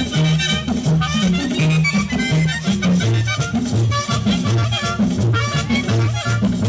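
Mexican banda brass band playing live, with a low bass line stepping between notes on a steady dance beat, drum and cymbal strokes, and a wind melody over the top.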